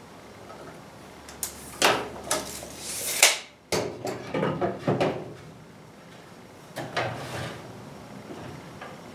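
Clunks, knocks and scrapes of a pallet-wood board being handled and slid into place on a miter saw's metal table against its fence: a cluster of sharp knocks over about three seconds, then a couple more about seven seconds in.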